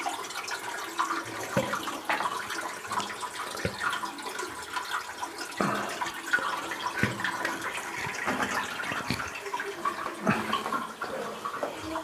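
Water running and trickling inside a cave, with scattered single drips landing every second or two.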